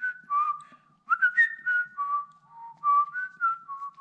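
A person whistling a tune: about a dozen short held notes stepping up and down, mostly drifting lower, with a brief break about a second in.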